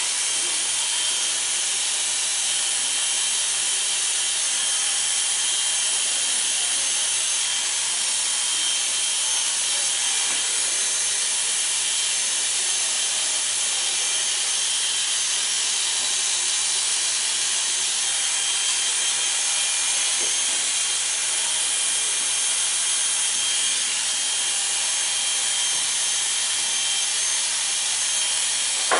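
Corded electric hair clippers running steadily while shearing hair very short on the side and back of a head.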